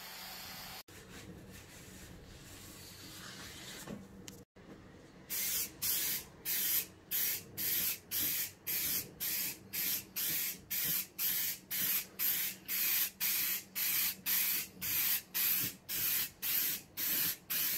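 Red oxide primer being sprayed onto a steel tractor wheel centre in short hissing bursts, about two a second. Before that, an angle grinder's abrasive brush on the rusty steel cuts off under a second in.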